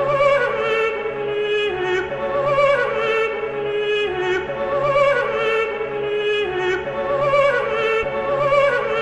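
Background music: a sung, wavering vocal line repeating a short falling phrase over a steady low note.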